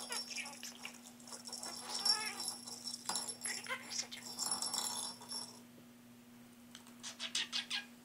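A budgerigar chattering and warbling as it pushes a small plastic ball toy around, with the toy rattling; a quick run of ticks near the end.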